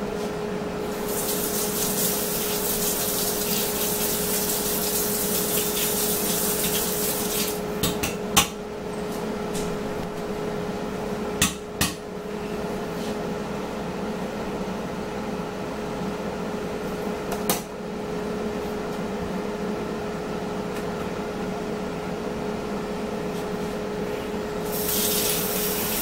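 Kitchen cooking sounds: a steady hum throughout, a hissing rush for several seconds near the start and again near the end, and four sharp knocks of dishes or utensils in between.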